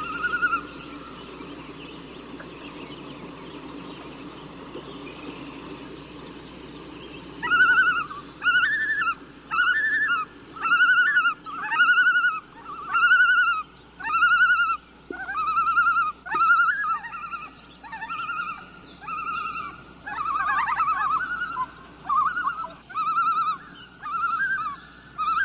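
A bird calling over and over, about one call a second, starting some seven seconds in over a faint steady background.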